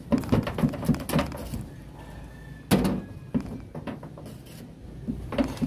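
Hands handling self-adhesive flashing tape and pressing it onto a corrugated metal roof sheet: a run of short knocks and thunks on the sheet metal, with one louder thump about three seconds in.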